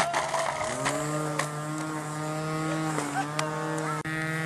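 An engine running steadily. Its pitch glides down and settles about a second in, then holds, with a few sharp clicks over it.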